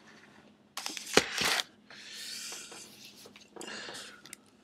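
Close rustling and handling noises as a person moves about with the camera and gets onto a bathroom scale. There is a sharp knock about a second in, followed by two stretches of rustling.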